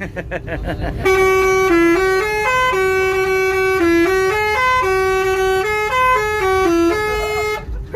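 Bus telolet horn playing a loud multi-note melody, its notes stepping up and down every fraction of a second, starting about a second in and stopping just before the end.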